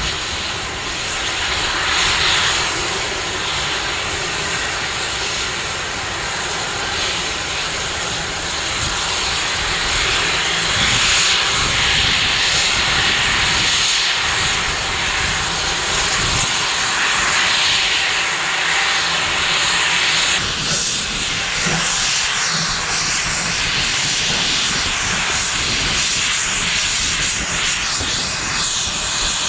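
A South African Railways Class 15CA and Class 25NC steam locomotive double-heading a train, giving a loud, continuous rush of exhaust and steam hiss that surges every few seconds.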